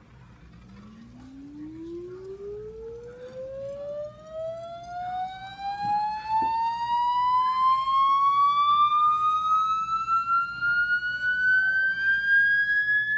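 A single pitched tone, with overtones, rising slowly and steadily in pitch from a low hum to a high whine, growing louder as it climbs.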